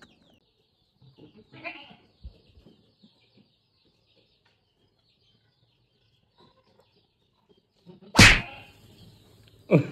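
A goat bleats once, loud and short, about eight seconds in, with a shorter falling call near the end; before that there are only faint scattered small sounds.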